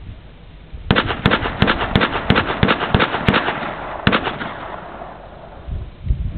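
HK rifle fired in a fast string of shots, about five a second for roughly three seconds, starting about a second in, with echo trailing after the last shot.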